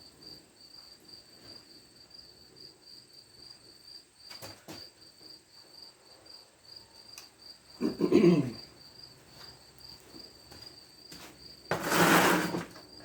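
Crickets chirping steadily in a fast, even high-pitched pulse. Two short, louder noises break in about eight and twelve seconds in.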